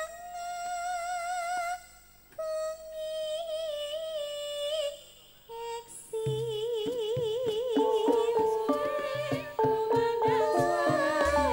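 Women singers holding long, wavering notes into microphones over a PA; about six seconds in, a band with a steady drum beat comes in under the voices.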